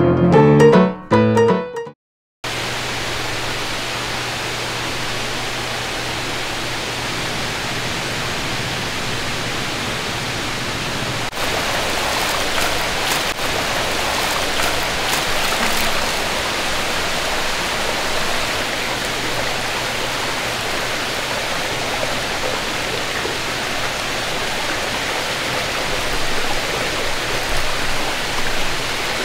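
Piano music ends within the first two seconds, then a steady rush of running water with a low hum underneath. About eleven seconds in the hum stops and the rush grows a little louder.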